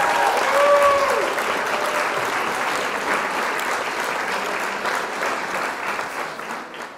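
Crowd applause with cheering, the cheers strongest in the first second or so, the clapping fading out toward the end.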